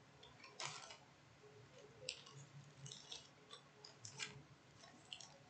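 Near silence: room tone broken by a handful of faint, short clicks and rustles, the longest about half a second in.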